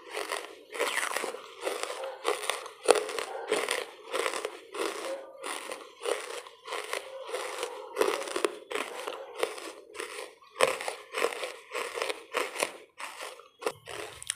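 Lumps of charcoal being bitten and chewed, a continuous run of crisp crunches about two to three a second.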